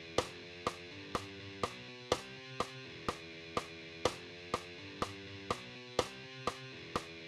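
Guitar part played over a steady beat of sharp strokes about twice a second, with held chords changing every few beats.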